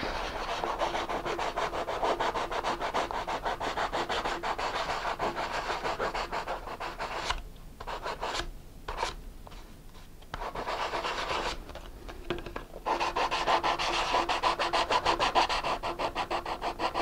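Sandpaper on a hand sanding bar rubbed back and forth over a paper rocket body tube in quick, even strokes, with a few short pauses about halfway through, smoothing drilled rivet holes.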